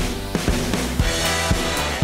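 Background music with a steady drum beat, a hit about every half second.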